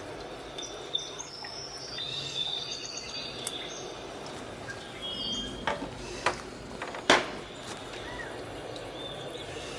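Small scissors snipping a fern stem at its base: a few sharp clicks, the loudest about seven seconds in. Faint high bird chirps come and go behind them.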